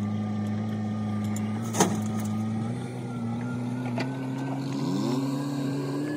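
Swaraj diesel tractor engine running steadily, its pitch rising a little about three seconds in as it is throttled up to work the trolley's hydraulic tipper. A sharp knock sounds about two seconds in.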